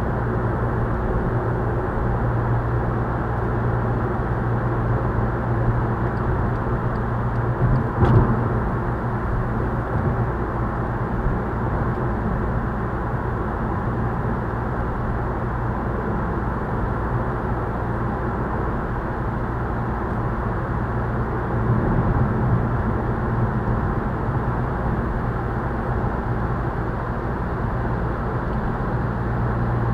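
Steady road and engine noise inside a Volkswagen Scirocco's cabin, cruising at motorway speed of about 120 km/h, with one sharp knock about eight seconds in.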